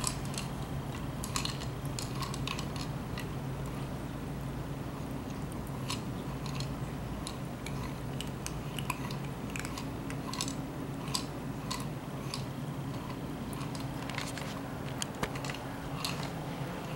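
Kittens crunching small dry cat treats and knocking a wobbling treat-dispensing ball on a tile floor: scattered small crunches and clicks throughout, over a steady low hum.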